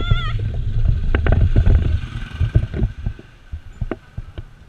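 Wind buffeting the microphone during a bicycle ride, with rattles and knocks from the bicycle rolling over a rough concrete lane. The wind rumble eases after about two seconds, leaving the scattered knocks and clicks.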